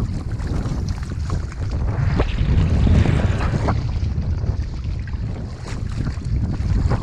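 Wind buffeting the microphone in a steady low rumble, with water splashing and sloshing close by as dogs swim alongside at the surface.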